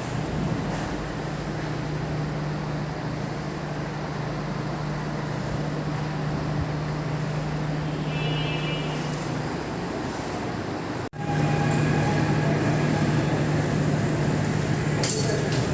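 A machine running steadily: a low hum over a broad rushing noise. It drops out sharply about eleven seconds in and comes back louder.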